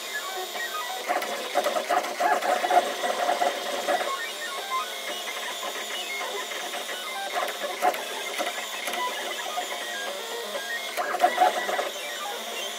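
Desktop FDM 3D printer running: its stepper motors whir and whine as the print head moves back and forth laying down plastic. The pitched whine comes and goes in stretches of a second or more as the moves change.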